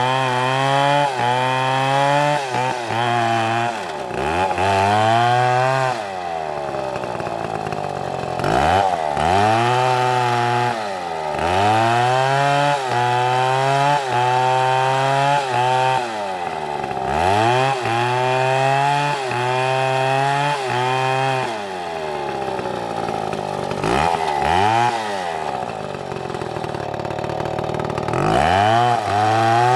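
STIHL two-stroke chainsaw cutting through a large log. The engine's pitch drops each time the chain bites in under load and climbs back as it frees, over and over, every few seconds.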